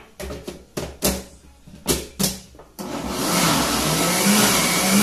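A few sharp knocks, then a Philco blender's motor starts about three seconds in and runs steadily. Its pitch wavers as it mixes flour into thick carrot cake batter.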